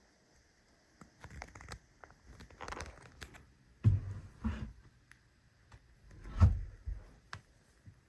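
Objects being handled and put back together by hand: irregular rustling and light clicks, with two heavier dull thumps about four and six and a half seconds in.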